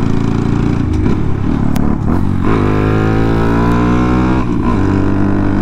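Honda Monkey 125's small single-cylinder engine running under way. Its revs dip twice early on, then climb steadily for about two seconds as it accelerates and drop back about four and a half seconds in, like a gear change.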